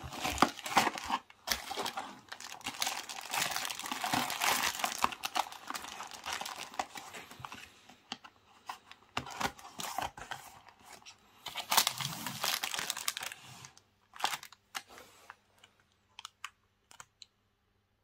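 Clear plastic wrapping around a pair of lacrosse massage balls crinkling and rustling as it is handled, in uneven bursts for about fourteen seconds. After that come a few separate light clicks.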